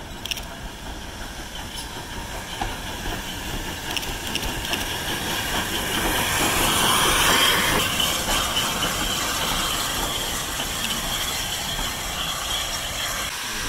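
Steam locomotive pulling a train into a station, with hissing steam and the train's running noise growing steadily louder. It is loudest a little past halfway as the engine passes close by venting steam, then eases off.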